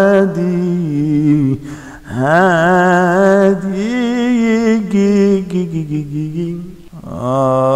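A solo male voice singing an Arabic devotional chant unaccompanied, in long drawn-out phrases with heavy vibrato and ornamented slides in pitch. The voice breaks for breath about two seconds in and again near the end.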